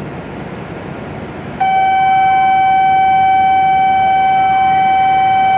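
A Shinkansen platform's electronic warning tone comes on abruptly about one and a half seconds in and holds as one loud, steady beep, over the low hum of the station platform.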